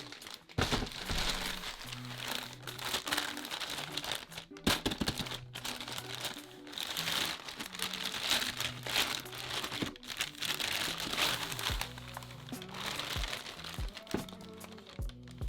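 Packaging being handled and unwrapped, with repeated crinkling rustles and a few sharp clicks, over background music.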